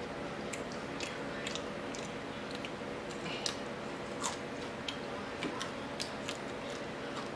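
Chewing and crunching of crispy fried crappie fish, with many short sharp crackles scattered through, over the steady hum of a fan.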